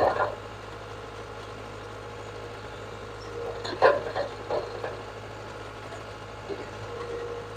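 Caterpillar 287B skid steer's turbocharged diesel engine idling steadily, with a few short sharp sounds about four seconds in.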